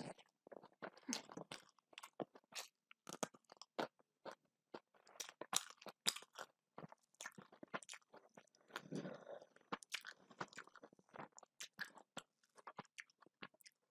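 A person chewing food close to the microphone, with many sharp crunchy clicks and mouth sounds following one another irregularly.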